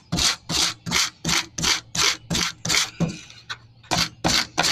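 Hand wire brush scrubbed back and forth along a cylinder head bolt, about three strokes a second, pausing briefly about three seconds in and then resuming. The old bolt is being cleaned of oil and grime so that it can be reused dry.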